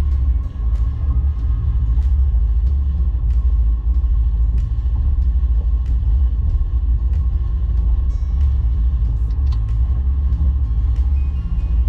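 A small fishing boat's motor running steadily under way, heard aboard as a loud, unbroken low rumble with a faint steady whine above it.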